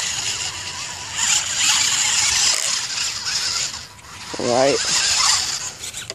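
The electric motors and gear train of a homemade radio-controlled crawler whining as it drives backwards over grass and leaves, in surges of a second or two.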